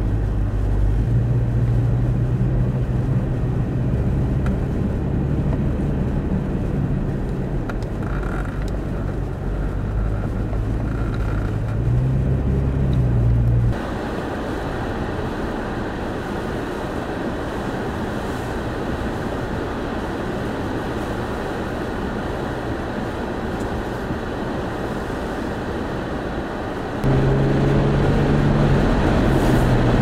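Vehicle engine drone and road noise from inside a car crawling through blizzard traffic, its low pitch stepping up and down. About 14 seconds in it gives way to a steady wind noise of strong gusts driving snow, and near the end a louder engine drone returns.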